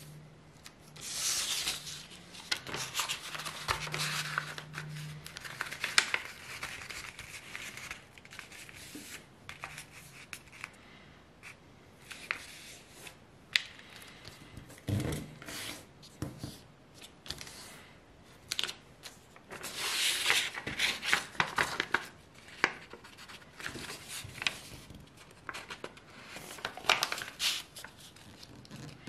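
A sheet of A4 paper being folded by hand on a cutting mat: rustling and crinkling as it is lifted and turned, and rubbing as the folds are pressed and creased flat, in several bursts.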